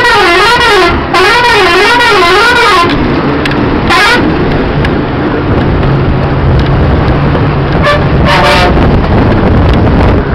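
Bus horn sounding in two long warbling blasts, its pitch wavering up and down, then a short blast about four seconds in and two brief toots near the end, over the steady low running of the bus engine and road rumble.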